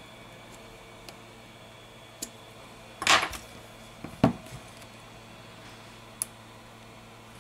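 Light handling sounds of a plastic phone display frame: a few faint clicks, a short scrape about three seconds in as it is picked up and turned over, and a sharp plastic click just after four seconds, over a steady low hum.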